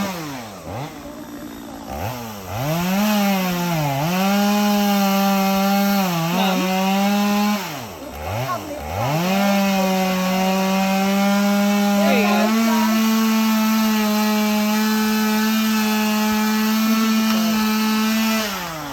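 Chainsaw cutting into the trunk of a dead tree being felled: revved in short bursts with the throttle let off between them for the first several seconds, then held at full throttle in one long steady cut before dropping back near the end.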